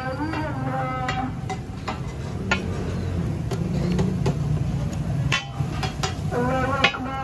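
Flat metal scraper clanking and scraping on a large tawa griddle as chicken pieces are turned, with sharp clanks scattered through, over a steady low hum.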